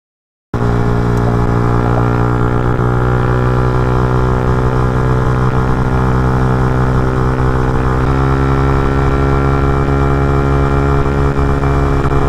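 Sport motorcycle engine droning steadily at motorway cruising speed, starting after half a second of silence; the pitch steps slightly about eight seconds in.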